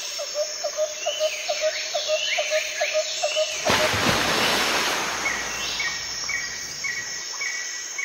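Cockatiel calling in a rapid run of short chirps, about four a second, with higher whistles over them. Near the middle there is a rush of noise, and then an even series of short higher notes about two a second.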